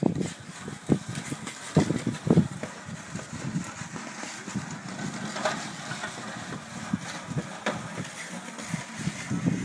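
Plastic milk crate being pushed and scraped across a rink surface, mixed with the scrape of small hockey-skate blades, as an uneven, continuous scraping, with a few louder scrapes in the first couple of seconds.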